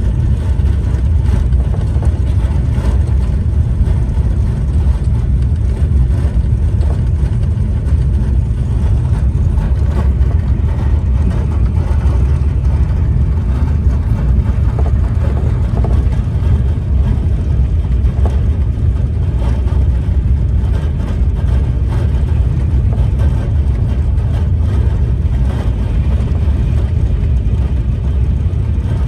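TGV Réseau high-speed train running at about 300 km/h: a loud, steady low rumble that holds without a break.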